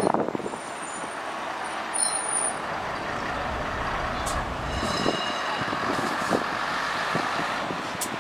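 Heavy road vehicle, a truck or bus, passing close by over steady traffic noise. There are short high squeals about half a second and two seconds in, and a low rumble builds through the middle.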